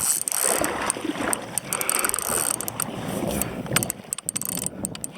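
Fishing reel being wound in against a heavy hooked fish, its gears turning with a run of irregular clicks under a noisy wash.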